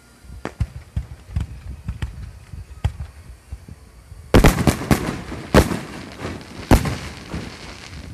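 Aerial fireworks going off: scattered pops and thumps of shells, then a quick cluster of loud bangs about four seconds in, followed by two more single loud bangs.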